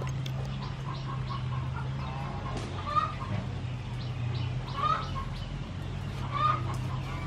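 Chickens clucking, with a louder call every second and a half to two seconds, over a steady low hum.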